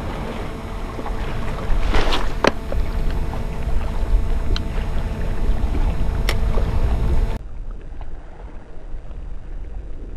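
Wind buffeting a windshield-covered microphone: a steady low rumble with a few sharp clicks, which drops away abruptly about seven seconds in.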